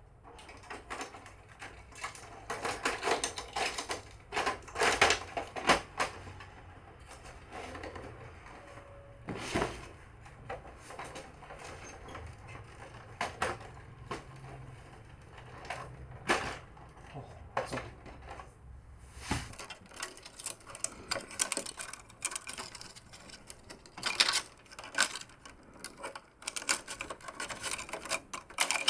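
Irregular clicks, knocks and clatter of hard plastic printer parts being handled and fitted back together while a Canon MF4450 printer's broken lid hinges are reassembled.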